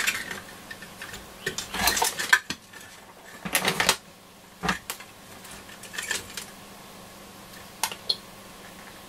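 Crackles and pops from the Nordmende Transita transistor radio's loudspeaker, set off by a component analyser testing a transistor in circuit. They come in irregular bursts with quiet gaps, the loudest about two seconds and four seconds in.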